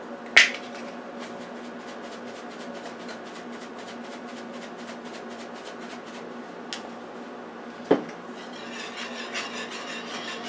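A plastic black-pepper shaker clicks open and is shaken over a pan in a quick, even ticking rhythm for about five seconds. A knock follows about eight seconds in, then a wire whisk starts scraping around a metal skillet of cheese sauce near the end.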